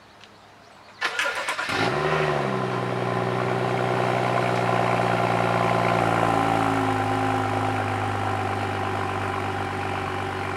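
Cold start of a BMW 335i's N55 turbocharged inline-six: the starter cranks briefly about a second in, the engine catches and flares up, then settles into a steady cold-start fast idle that eases down slightly partway through.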